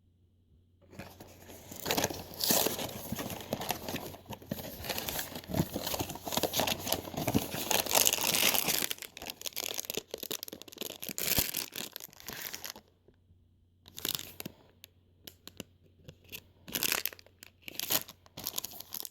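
Packaging being torn and crinkled open by hand: about eleven seconds of continuous tearing and rustling, then a short pause and several shorter rustles near the end.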